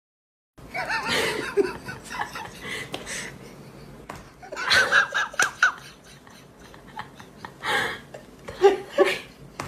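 A person laughing and giggling in several short bursts, with a few light pats of a hand on a cat's back between them.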